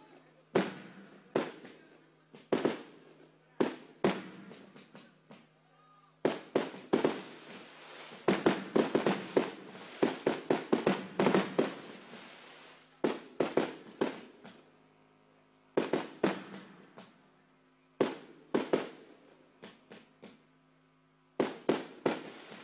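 Fireworks going off in quick succession: sharp bangs with crackling tails, thickening into a dense barrage of bursts in the middle before thinning to spaced bangs and a short cluster near the end, over a faint steady low hum.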